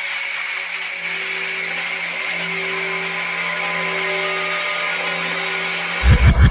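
Hard techno breakdown: a steady droning synth layer of held tones over hiss, with the bass filtered out. About six seconds in, the kick drum and bass drop back in with an even beat.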